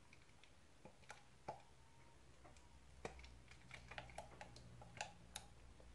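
Near silence with faint, irregular light clicks and ticks from a plastic squeeze bottle being squeezed to drizzle coffee over biscuit crumbs in glass bowls.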